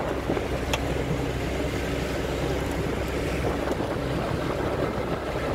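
Small motorboat's engine running steadily under way, with water and wind noise over it. A brief click comes just under a second in.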